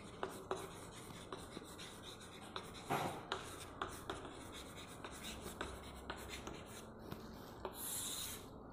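Chalk writing on a chalkboard: faint tapping and scratching as letters are written, with one longer scratching stroke near the end.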